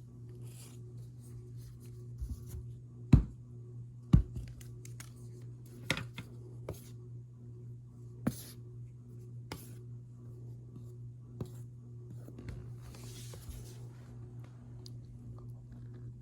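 Hands working cornstarch powder: scattered soft crunching squeaks and taps, with two louder knocks about three and four seconds in, over a steady low hum.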